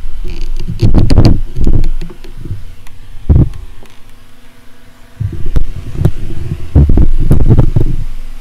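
Handling noise from the camera being picked up and carried: irregular loud low thumps and rumbles with a few sharp clicks, in bursts with a short lull midway.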